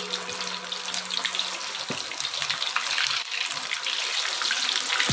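Boiled, seasoned cassava pieces deep-frying in hot oil in a wok: a steady, busy crackling sizzle.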